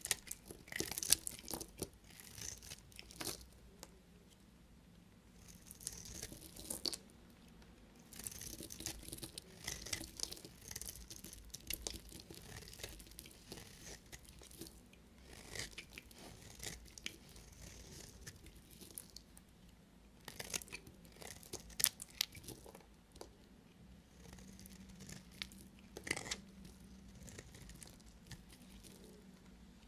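A knife cutting through bars of soap: a run of crisp scraping, crunching cuts, each lasting about a second, with short sharp clicks in between.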